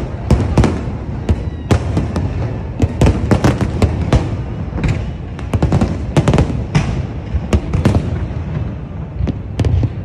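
Aerial fireworks shells bursting in a continuous barrage: many sharp bangs in quick succession, several a second, over a steady low rumble.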